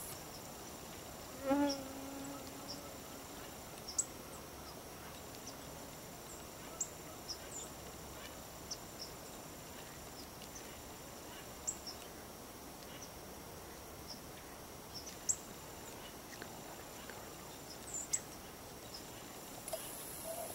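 Evening insect chorus in marsh grass, a steady high calling, with short high chirps every few seconds. A brief low call sounds about a second and a half in and is the loudest thing heard.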